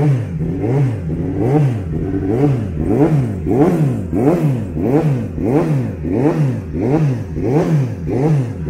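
Kawasaki Ninja ZX-10RR superbike's inline-four engine being blipped up and down over and over, its revs rising and falling in quick, even swoops nearly twice a second.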